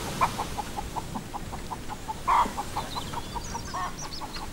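Chickens clucking in a quick, even run of short calls, about five a second, with two louder calls at the start and about two seconds in. Faint high chirps of small birds come in near the end.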